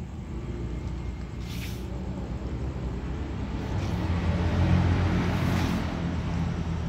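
Low rumble of a motor vehicle passing, swelling to its loudest about four to five seconds in and then easing off.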